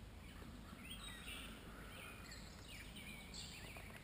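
Faint birdsong: several short chirps and whistles scattered through, over a low steady outdoor hum.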